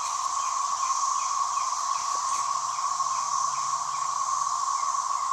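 Massed cicadas buzzing in a loud, continuous, steady chorus. A fainter short chirp repeats about twice a second through most of it.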